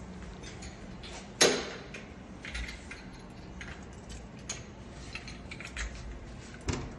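Scattered light clicks and metallic clatter of small metal hardware being handled, with one sharper knock about a second and a half in.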